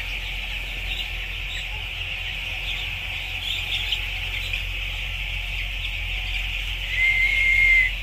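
A shed full of young chicks peeping all at once, a dense steady chorus of high chirps, over a low steady hum. Near the end a single high, level whistle-like tone holds for almost a second and is the loudest sound.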